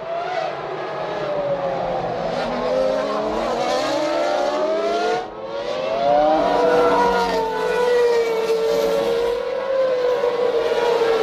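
Formula One cars' V10 engines at racing speed, several engine notes overlapping and rising and falling in pitch with throttle and gear changes. The sound drops out briefly about five seconds in, then comes back.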